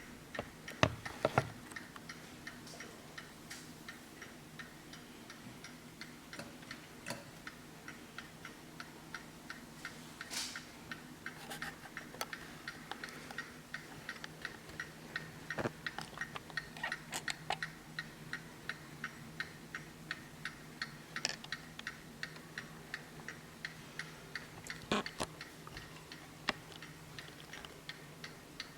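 Hermle skeleton mantel clock's mechanical movement ticking evenly and steadily, with a few louder single knocks now and then.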